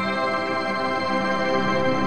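Calm background music of steady, held chords.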